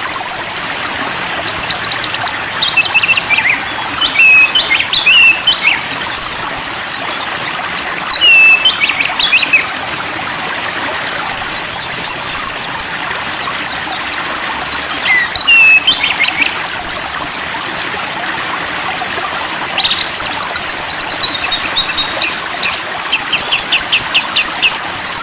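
Songbird singing short whistled phrases with up-and-down glides, separated by pauses, over a steady rush of flowing water; in the last few seconds a fast chattering trill of rapidly repeated high notes.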